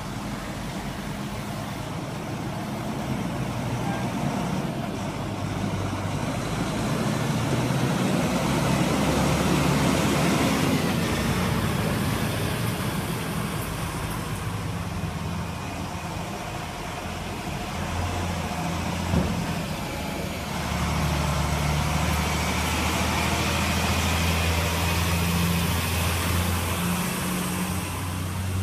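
Heavy-haulage lorry's diesel engine running at low revs as it pulls a long trailer slowly past, the engine note growing louder twice as it goes by. One sharp knock about two-thirds of the way through.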